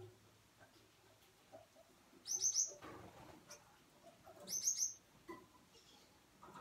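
A small finch chirping twice, each time a quick run of four or five high chirps, the two runs about two seconds apart.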